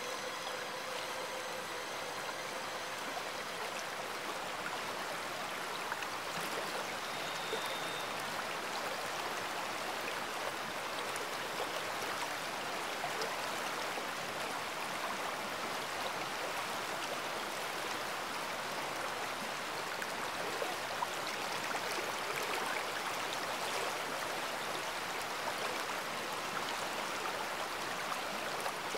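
Running water of a stream, a steady even rush.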